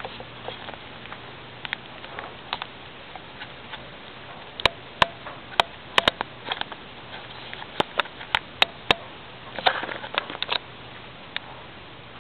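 Irregular sharp clicks and taps, about a dozen, most of them in the middle and later part, over a faint steady low hum.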